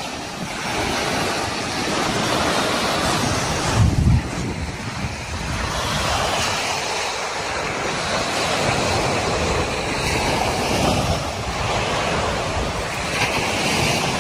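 Surf washing onto a sandy beach, with wind on the microphone and a brief low buffet about four seconds in.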